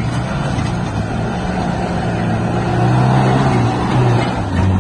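Suzuki Jimny 4x4 engine working under load as it crawls over rutted dirt, its pitch rising and falling with the throttle and climbing again near the end.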